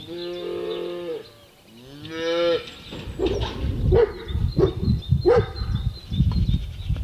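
Young livestock calling: two long calls in the first two and a half seconds, the second rising in pitch, then several short calls over a low thumping rumble.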